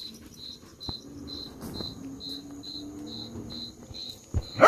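Cricket chirping steadily, a short high chirp about twice a second. A few faint pops from the campfire, with a low thump near the end.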